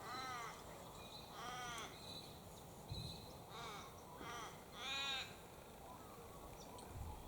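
A raven calling a series of about five to six harsh caws, spaced a second or so apart, the last one, about five seconds in, the loudest.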